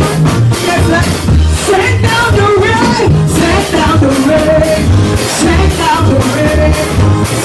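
Loud upbeat gospel praise music: a singer's voice over a heavy bass and drum beat.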